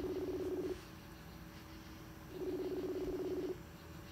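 Outgoing Facebook Messenger call ringing on a phone: a trilling ring tone that lasts just over a second and repeats about every three seconds, with no answer. The ring ends about a second in and sounds again near the end.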